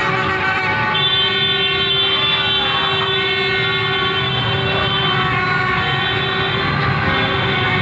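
Horns sounding in long, steady, overlapping blasts over a continuous din of street noise at a street celebration, one long blast starting about a second in.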